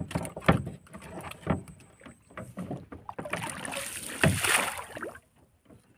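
Irregular knocks and thumps on the deck of a small wooden fishing boat, with a rustling hiss between about three and five seconds in, as fishing line and gear are handled in the boat.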